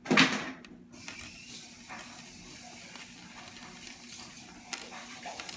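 A brief loud rush of noise at the start, then a faint steady hiss with a few light clicks of a budgerigar's beak on a plastic-coated paper clip.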